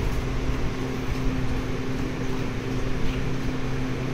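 Steady mechanical hum from a running household machine, with low steady tones in it and one brief click about three seconds in.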